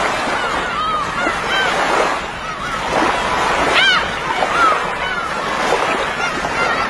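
A flock of birds calling together in a dense, continuous chatter of short, repeated arching calls, with one louder, harsher call about four seconds in.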